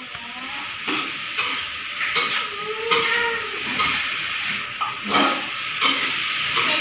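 Salted squid, squash and petai sizzling and steaming in a wok on a gas burner, with a spatula scraping and knocking against the pan again and again as the food is stirred.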